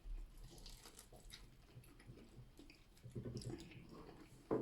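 Faint, wet chewing and mouth sounds of someone eating saucy seafood boil, with scattered small clicks and a sharper click near the end.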